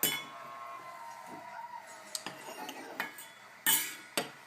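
Metal kitchenware such as pots and utensils being struck and clattered: a sharp clank at the start that rings on for about a second, then a few more clanks and clinks, the loudest about three-quarters of the way through.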